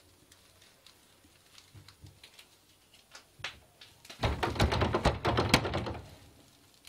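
A locked wooden door rattled hard by its handle, a quick run of clattering knocks and thuds for about two seconds starting about four seconds in: the door is stuck and won't open. Before it, only faint small clicks of hands on the door.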